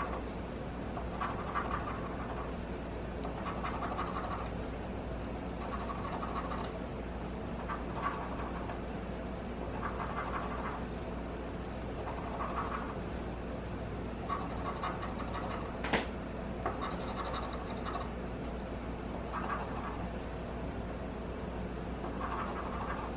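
Scratch-off lottery ticket being scratched, its coating rubbed away in a steady series of short scratching strokes every second or two, with one sharper click about sixteen seconds in.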